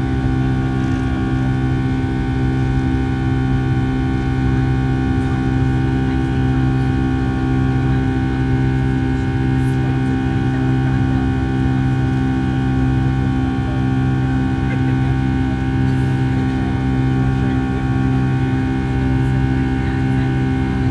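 Steady drone inside the cabin of a Boeing 757-300 with its jet engines running, a hum made of many fixed tones that holds unchanged throughout.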